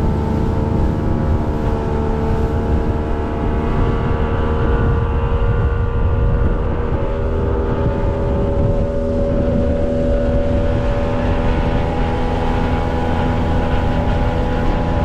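Outboard motor running a fishing boat at steady speed, its engine tone holding nearly level, over a heavy low rumble of wind and water.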